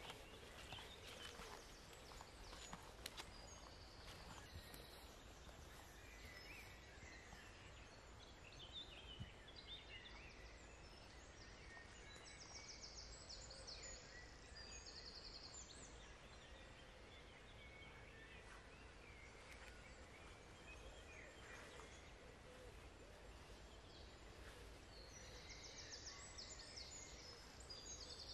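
Quiet woodland ambience with faint songbirds singing: scattered chirps and rapid trills, with a busier trill about halfway through and another near the end. A few faint footsteps on the forest floor at the start.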